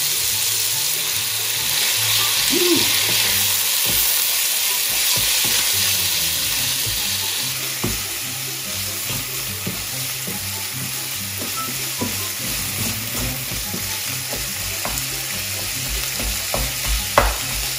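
Diced chicken sizzling steadily as it fries in oil in a non-stick frying pan, stirred with a wooden spatula that scrapes and taps against the pan, with a few sharp taps near the end.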